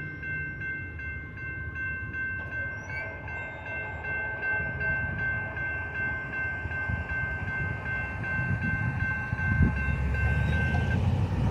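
Railroad crossing warning bell ringing in rapid, even dings while the crossing gates rise, stopping shortly before the end as the gates reach the upright position. Under it, a low rumble of road traffic grows louder toward the end.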